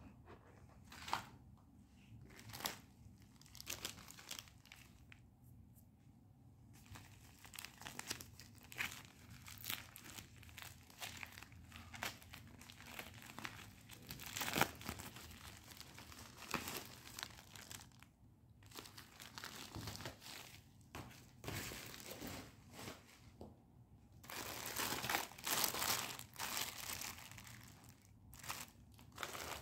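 Crinkly packaging crinkling and rustling as it is handled during unboxing, in short irregular spurts with a few brief pauses, busiest near the end.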